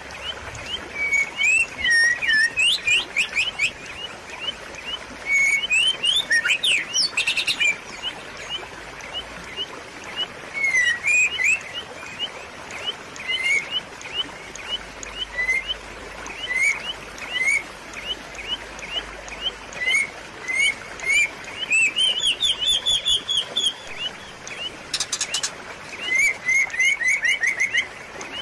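Songbird chirping in quick runs of short, high, rising notes, in several groups with pauses between, over a steady hiss of babbling water.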